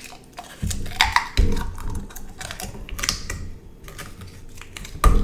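Close-microphone handling sounds: a loose series of sharp clicks and taps, with dull knocks about a second in and a loud one near the end.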